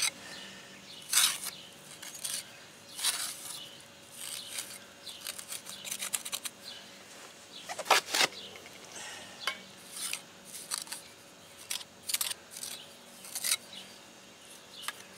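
Steel mason's trowel and pointing tool scraping and clinking: mortar being pressed into a brick joint and scraped off the blades, as a string of short scrapes and clicks, the sharpest about eight seconds in.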